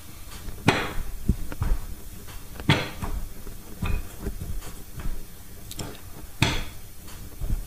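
Wooden rolling pin rolling out pastry dough on a wooden board, knocking against the board with each stroke: a few strokes about two seconds apart, with smaller knocks between.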